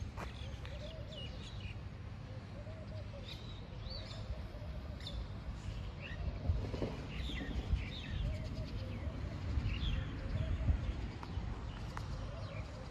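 Birds chirping in short, scattered notes, with a softer lower call repeating every second or so, over a steady low rumble.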